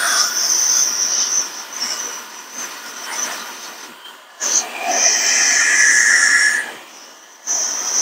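Metrovac ESD duster, an electric air blower run at reduced voltage, blowing air across a microwave connector: a hiss of air with a high motor whine, in three blasts, the first easing off after about two seconds and stopping about four seconds in, the second from about four and a half to almost seven seconds, the third starting near the end.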